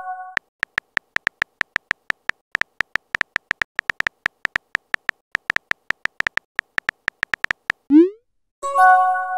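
Phone-keyboard typing sound effects: a rapid run of short, high clicks, about six a second, as a text message is typed. Near the end a short rising swoop marks the message being sent, followed by a chime of several tones.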